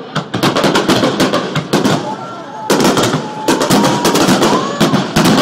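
Aerial firework shells bursting in a rapid barrage: a dense run of sharp bangs and crackles following one another in quick succession.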